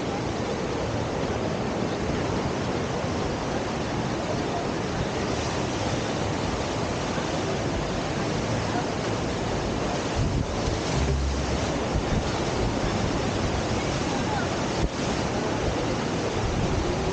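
Steady rushing of river water pouring through a standing surf wave, with brief wind buffeting on the microphone about ten seconds in.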